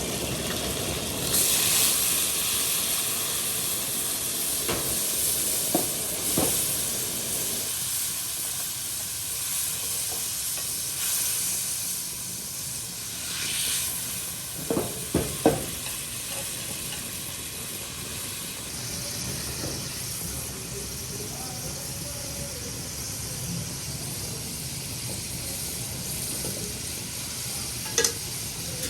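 Food sizzling steadily as it fries in hot oil in a pan. A few sharp knocks, likely a utensil against the pan, come about halfway through and one more near the end.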